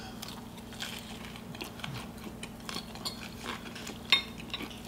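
Quiet chewing with light clinks of a metal fork against a ceramic bowl, and one sharper clink about four seconds in.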